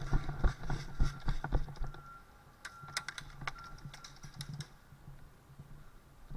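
Quick footsteps of a player moving forward, sharp steps about every half second for two seconds, then a few scattered sharp clicks before it goes quieter.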